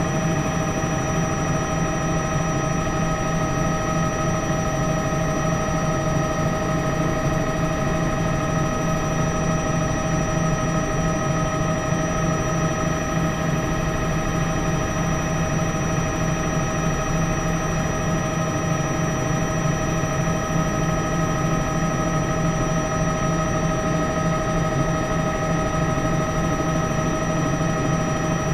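News helicopter's engine and rotor noise: a steady drone with a constant high whine that does not change.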